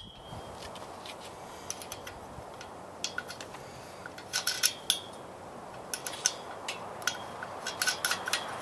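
Light metallic clicks and clinks of a nut being threaded by hand onto a bolt through a steel bracket on a metal stand. The clinks come in scattered groups, more often in the second half.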